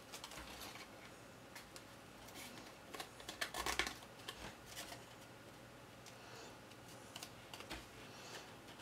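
Cardstock pieces being handled and pressed together by hand: faint, scattered rustles and light taps, with a louder crackly cluster about three and a half seconds in.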